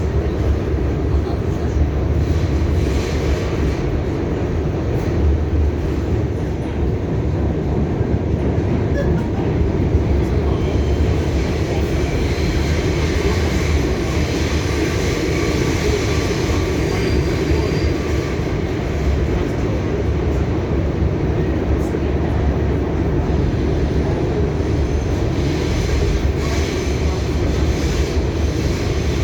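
R68A subway train running at speed, heard from inside the car: a steady rumble of wheels on rails and motors.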